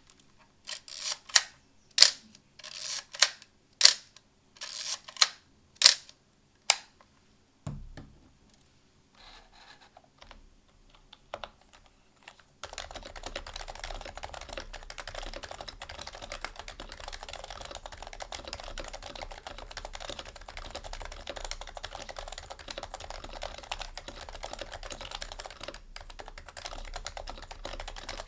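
A series of short, sharp swishing strikes, then a low thump and a few scattered soft clicks. From a little before halfway, steady fast typing on an HHKB Pro Hybrid Type-S, its stock keycaps over 45 g Topre rubber domes, a dense muted clatter.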